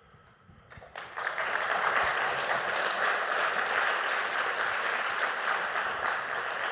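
Audience applauding at the end of a conference talk, the clapping starting about a second in and keeping up steadily.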